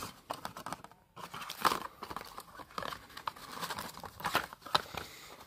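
Packaging crinkling and rustling as it is handled, with irregular small clicks and taps.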